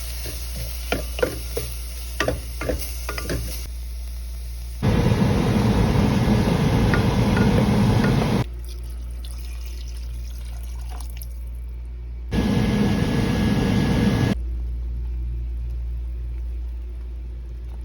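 A few light knocks and clatter, then running water in two bursts, one of about three and a half seconds and a shorter one of about two seconds, each starting and stopping abruptly.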